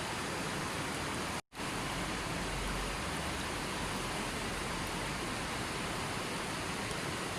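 River water flowing, a steady rushing hiss with no change in level. It cuts out completely for an instant about a second and a half in.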